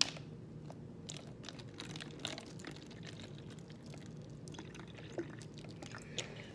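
Vinegar being poured into a plastic bottle, a faint running trickle with scattered small splashes and ticks. There is a sharp click right at the start.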